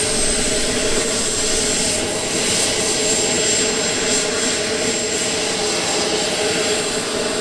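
Miniature turbine engine of a large radio-controlled model jet whining steadily as the jet taxis on grass, with a thin high whistle that dips slightly in pitch in the first second.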